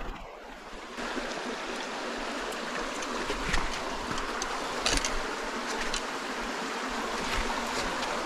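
Shallow rocky creek running steadily over stones, softer at first and in full from about a second in. A few short scuffs and knocks of footsteps and handling can be heard over it.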